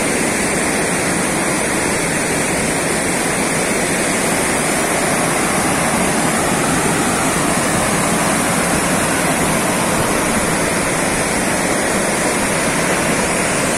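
Floodwater pouring over a dam's spillway and churning below it: a loud, steady rush of falling water.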